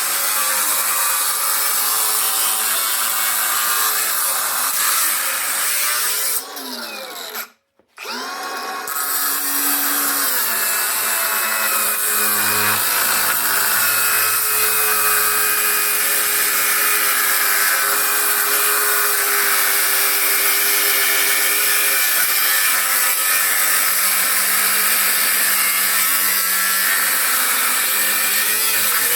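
Milwaukee M18 3670-20 cordless 6-inch angle grinder with a cutting disc slicing through a thick car brake rotor: a loud, steady grinding hiss. About six seconds in the grinder is released and winds down to a stop in a falling whine, then about a second later it starts again, whining up in pitch, and the cutting resumes.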